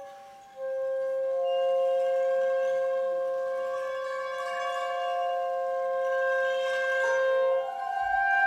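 Chamber ensemble of Chinese and Western instruments playing contemporary music in long held notes that layer into a sustained chord. After a brief fade, a new chord enters about half a second in, and the pitches shift near the end.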